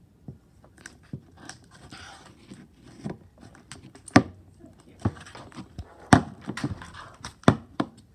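Spoon stirring sticky, half-activated glue slime in a bowl: irregular sticky crackles with sharp clicks and knocks of the spoon against the bowl, the loudest knocks in the second half.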